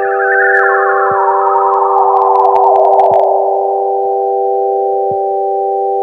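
Electronic ambient music: a steady chord of pure sine-like tones held underneath while a cluster of warbling bleeps steps downward in pitch over the first three seconds or so. Soft low blips come about every two seconds, and a scatter of clicks falls two to three seconds in.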